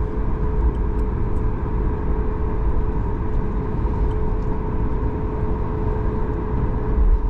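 Inside the cabin of a Boeing 737 MAX 9 taxiing: a steady low rumble from the rolling airliner, with a steady hum from its CFM LEAP-1B engines at taxi power.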